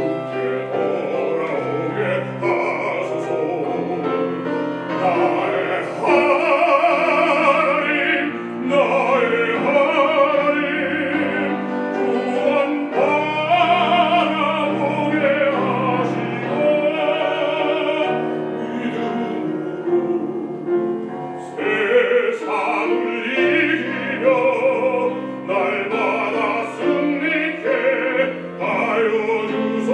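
A man singing a hymn solo in a trained, operatic voice with strong vibrato, accompanied by piano.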